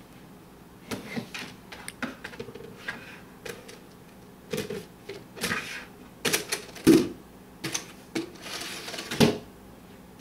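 Plastic bowl knocking and scraping against a wooden TV stand in an irregular clatter of light taps, with the loudest knocks between the middle and near the end.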